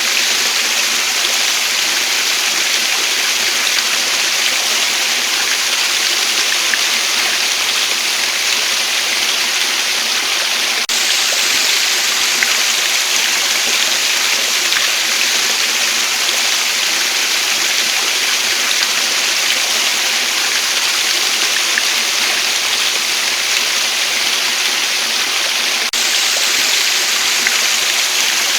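Waterfall: a steady, even rush of falling water with no pauses or changes in level.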